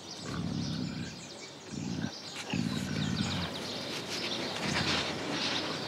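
Puma making low rumbling sounds in stretches of about a second, with birds chirping in the background.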